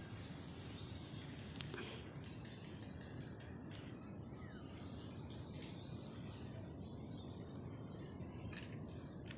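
Faint outdoor background of birds chirping: short high calls come and go throughout, over a steady low hiss, with a few light clicks.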